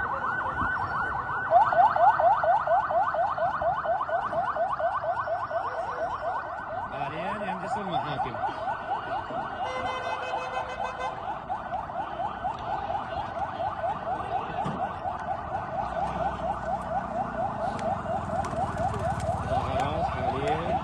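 Police vehicle siren in a fast yelp: quick rising sweeps repeating several times a second without a break, louder from about a second and a half in.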